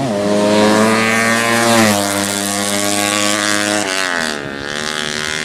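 A 200cc underbone (bebek) drag motorcycle engine running loud at high revs during a drag run, its pitch dropping about two seconds in and again about four seconds in, as at gear changes.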